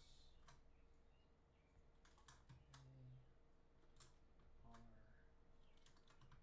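Faint, scattered key clicks of a mechanical keyboard, single keystrokes roughly a second apart, over a faint steady hum.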